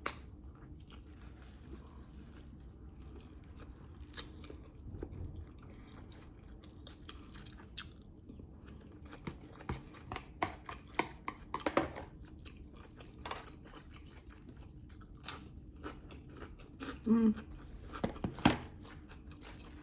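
A person eating close to the microphone: chewing with wet mouth clicks and scattered crunches, busier from about halfway through, with a few louder bites near the end.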